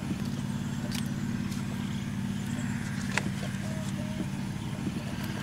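A small engine running steadily with an even low drone, with a couple of sharp clicks about one and three seconds in.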